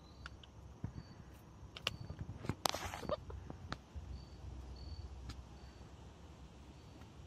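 Light rustles and taps in dry straw and grass, with one louder scratching rustle about two and a half seconds in. A few faint, short, high peeps repeat a little past the middle.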